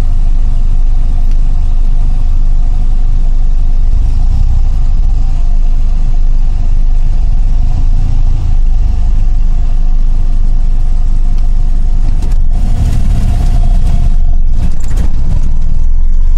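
2002 Hyundai Galloper II SUV being driven, with its engine and road noise heard from inside the cabin as a steady low rumble and a constant mid-pitched drone. A couple of brief rushing noises come in about three-quarters of the way through.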